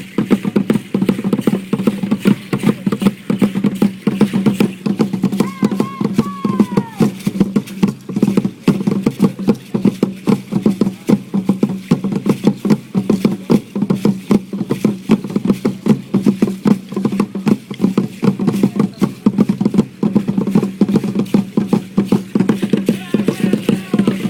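Fast, steady drumming for a pre-Hispanic dance, a rapid run of strikes over a low, booming drum tone. A brief voice-like call rises and falls about six seconds in.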